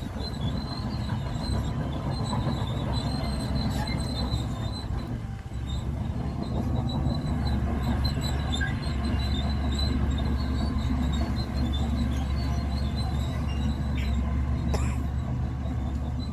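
Bulldozer working: diesel engine running steadily under load, with the high squeal and clatter of its steel crawler tracks.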